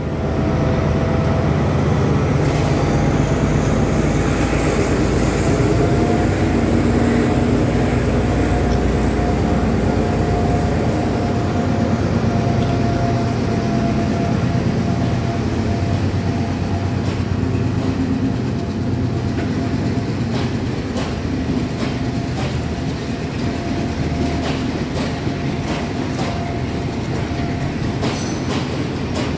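Sri Lankan Railways Class M6 diesel locomotive moving off past the platform with its train of coaches. The engine runs with a steady drone and a held whine. From a little past the middle, the coaches' wheels click over the rail joints.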